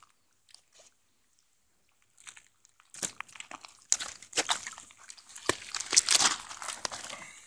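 Nylon keepnet mesh rustling and crinkling as a hand rummages in the net to lift out a fish. After a couple of nearly quiet seconds, a run of crackles and sharp clicks starts about three seconds in and keeps going.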